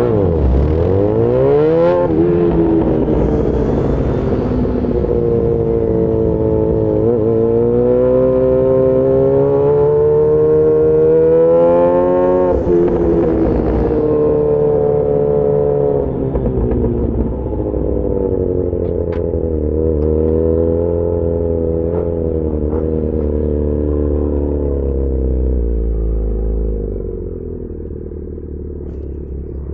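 Yamaha XJ6 S's inline-four engine running through an SC-Project aftermarket exhaust while riding. The revs dip and pick up again in the first two seconds, climb steadily, fall away suddenly about twelve seconds in, then sink slowly and ease off near the end as the engine quietens.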